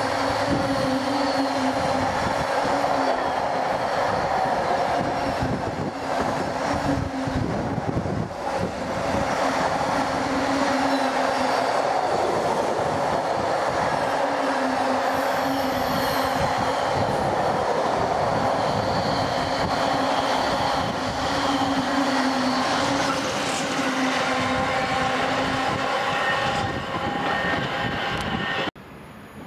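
Freight train hauled by a Class 66 diesel locomotive passing close on the near track: a continuous loud rumble and clatter of wagon wheels on the rails, with a recurring pitched hum rising and falling every few seconds. The sound cuts off suddenly near the end.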